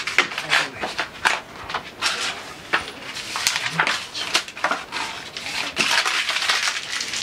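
Crinkling and rustling as hands handle sheets of paper on a table, a quick irregular run of crackles with small knocks.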